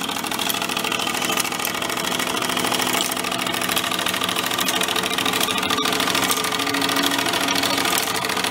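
A machine running steadily, with a fast, even mechanical texture and no change in level.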